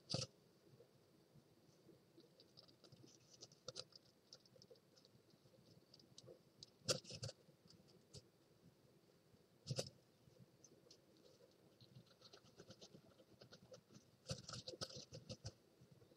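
Faint scratching and rustling of an adult great tit shuffling in the moss and hair lining of a nest box as it settles to brood its newly hatched chicks, with two sharper knocks and a busier burst of scratching near the end.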